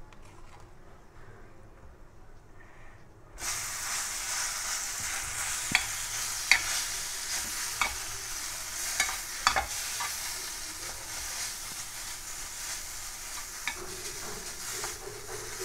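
Boiled, drained Maggi instant noodles sizzling in hot oil and spices in a metal pan, the sizzle starting suddenly about three seconds in. A plastic spoon stirs them, with sharp clicks against the pan every second or so.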